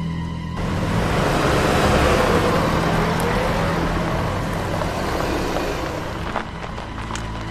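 A car driving past at speed: engine and tyre noise swell suddenly about half a second in and then fade away slowly.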